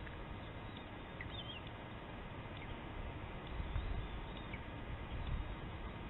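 Outdoor nest-cam ambience: a steady hiss with low rumble that swells about halfway through, and a few faint, short, high bird chirps.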